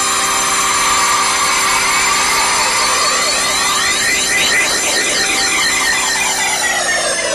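A steady electronic drone of many held tones with a slow swirling sweep moving through it, like a synthesizer pad.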